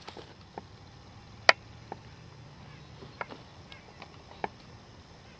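A few scattered sharp knocks and clicks from a soil sample being dug by hand and a cardboard box being set down on dry, stubbly ground. The loudest knock comes about one and a half seconds in, over a faint low rumble.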